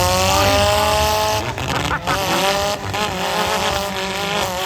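Demolition derby car engines revving hard, a high wavering pitch that rises and dips, over a low rumble.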